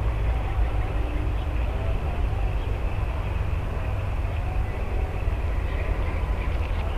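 Steady low rumble of wind buffeting an outdoor camera microphone, with a faint, even high-pitched drone behind it.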